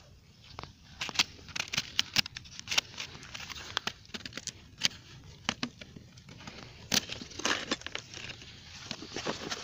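Large bonfire burning and crackling, with irregular sharp pops and snaps over a low hiss.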